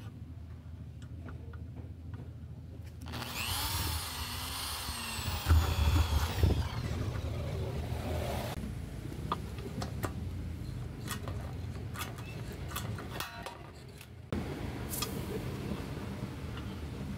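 Steel bracket and aluminium screen-door profile being handled and worked together: light clicks and knocks, a long high squeal of metal rubbing on metal with a wavering pitch, and a few heavy thumps in the middle of the squeal.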